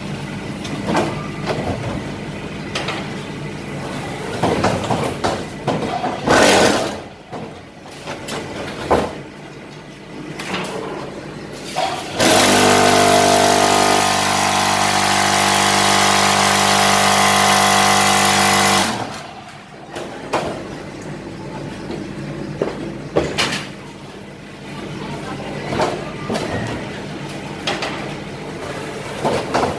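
Fully automatic hydraulic fly ash brick and block making machine working through a moulding cycle, with irregular clanks and knocks as the pallet and mould move. About twelve seconds in, a loud steady hum starts and lasts about six and a half seconds while the mould is vibrated and compacted. It then cuts off and the clanking resumes.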